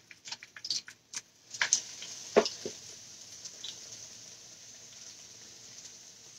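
Floured chicken tenders frying in hot oil in a cast-iron skillet: a steady sizzle that sets in about a second and a half in, after a few light clicks and rustles of flour dredging. One sharp knock comes about two and a half seconds in.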